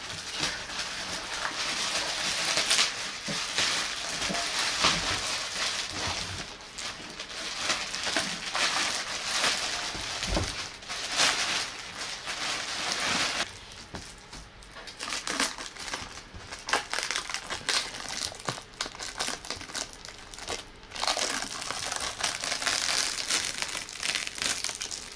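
Plastic packaging bags crinkling and rustling as a boxed audio component is worked out of its wrapping. The rustling eases for several seconds in the middle, leaving a few scattered crackles, then picks up again.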